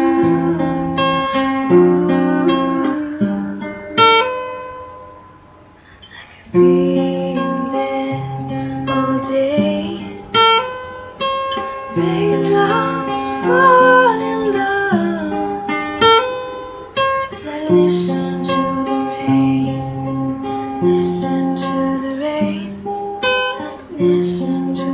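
Acoustic guitar strummed in a soft-rock/country song. It dies away about four seconds in and comes back in at about six and a half seconds.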